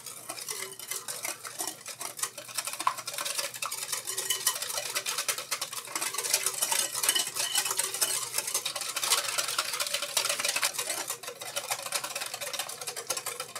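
Wire balloon whisk beating a thick mix of egg yolks, sugar, cornstarch and a little milk in a glass bowl: fast, continuous ticking and scraping of the wires against the glass. This is the egg yolk base for pastry cream being whisked smooth.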